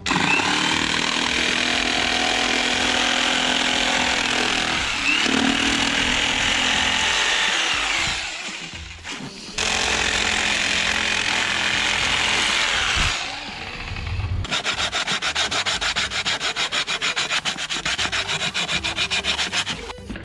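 Corded jigsaw cutting a thin plywood board, its blade running steadily, stopping briefly about eight seconds in and cutting again for a few seconds more. In the last few seconds a fast, even ticking rhythm takes over.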